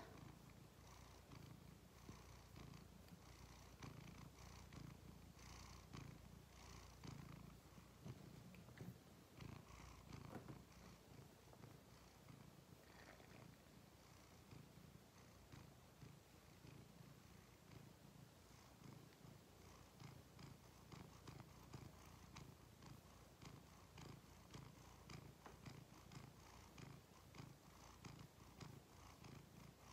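Domestic cat purring steadily, faint and even, held close to the microphone.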